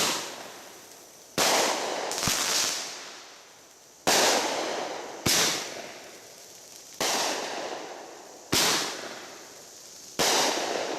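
Fireworks going off in a series: eight sharp bangs about one to two seconds apart, each followed by a fading hiss lasting about a second.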